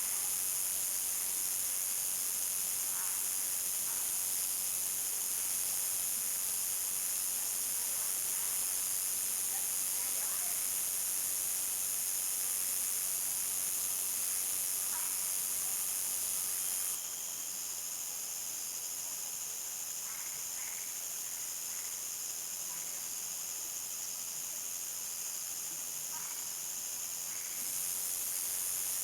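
Chorus of crickets at nightfall: a steady, high-pitched trilling, with a few faint short chirps lower in pitch. Part of the chorus drops out about seventeen seconds in and comes back near the end.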